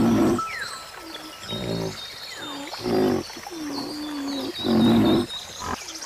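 An animal's low calls, four short ones about a second and a half apart, with small birds giving short falling chirps in between.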